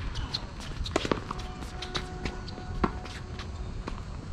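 Footsteps and tennis ball bounces on a court: scattered, irregular sharp clicks and knocks.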